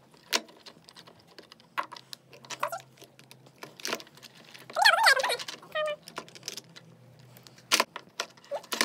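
Scattered plastic clicks and knocks as a toy screwdriver turns the big plastic bolts of a CAT Junior Operator take-apart toy bulldozer, its parts tapping on a wooden table. A short high voice sounds about five seconds in.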